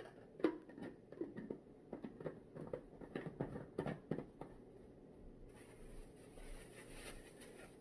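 Light irregular clicks and scratchy handling noises of a plastic protein shaker being turned over and unpacked. A faint steady hiss comes in over the last two seconds.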